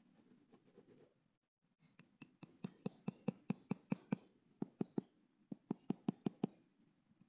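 Claw hammer tapping a thin wooden stake into the ground: a quick run of light strikes, about four a second, each with a high metallic ring, pausing briefly about five seconds in. Soft scuffing of handling comes before the strikes.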